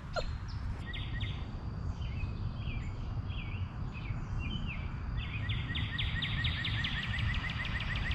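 Outdoor ambience: a steady low rumble with high bird calls chirping about once a second, turning into a fast, even trill about six seconds in.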